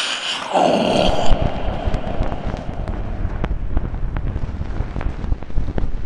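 A brief loud rush of noise, then dense crackling with scattered sharp pops over a low rumble.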